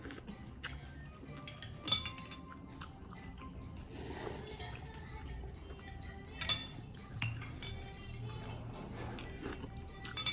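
Wooden chopsticks clinking against a soup bowl: a few sharp, briefly ringing clinks, the loudest about two seconds in, past six seconds, and at the very end, over faint background music.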